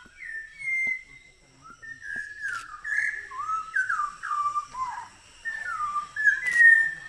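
A small songbird singing a varied whistled song: a string of short, clear notes sliding up and down, ending on a longer held note.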